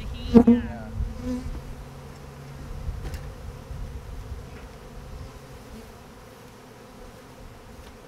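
Many honey bees buzzing in flight around a disturbed colony whose comb is being removed, a steady hum. A brief louder sound comes about half a second in.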